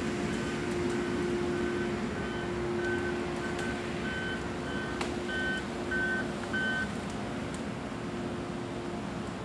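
Diesel engine of a tracked or wheeled logging machine running steadily, with its backup alarm beeping about twice a second as it reverses; the beeping stops about seven seconds in while the engine runs on.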